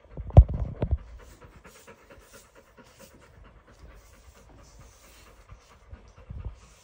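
Pit bull panting quickly and evenly, with a cluster of low thumps in the first second and another short thump near the end.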